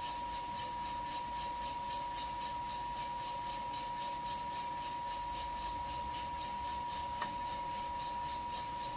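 Kaleido M10 Sniper Pro electric drum coffee roaster running steadily mid-roast, with its exhaust fan set to 60% to draw off heat and slow the rate of rise. It makes a steady whine over a soft hiss, with one faint click about seven seconds in.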